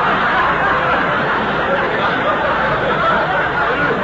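Studio audience laughing, one long unbroken laugh, heard through an old radio broadcast recording.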